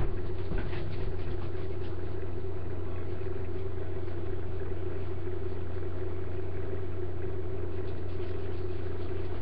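A steady low hum with a faint hiss behind it, unchanging throughout, with a few faint clicks in the first couple of seconds.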